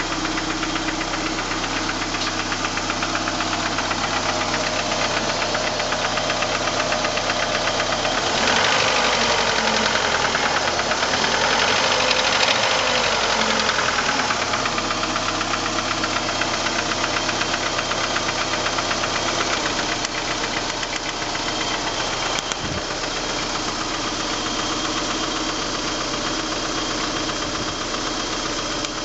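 Engine of a 1989 PGT running with a knock that the owner suspects is rod knock. It idles, is revved up and let back down over several seconds part way through, then settles back to idle.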